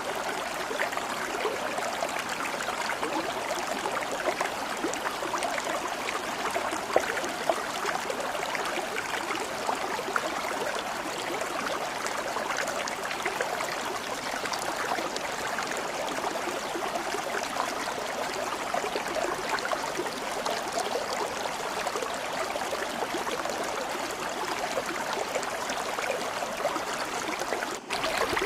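Stream water flowing steadily with an even rushing and trickling, interrupted by a brief dropout just before the end.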